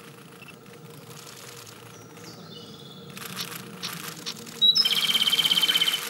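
Japanese robin (komadori) singing: a few faint high calls, then about four and a half seconds in a thin high note followed at once by a loud, fast rattling trill lasting about a second.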